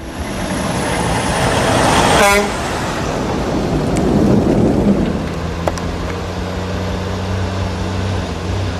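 Heavy logging truck's diesel engine running hard, with a brief sharp burst about two seconds in, then settling into a steady low drone.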